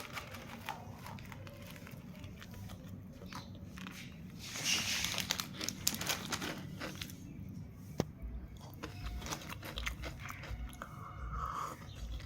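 Close-up chewing and crunching of crisp snacks (aloo bhujia namkeen and biscuits), with a louder crunch about four and a half seconds in.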